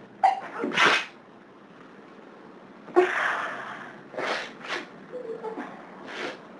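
A person sneezing over and over in a hay-fever sneezing fit. One sneeze comes about a second in and a louder, sharper one at about three seconds, followed by shorter bursts near the end.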